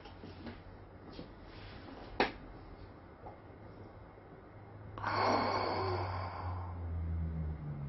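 A person sighs loudly about five seconds in, over a low steady hum, with a faint click a couple of seconds earlier.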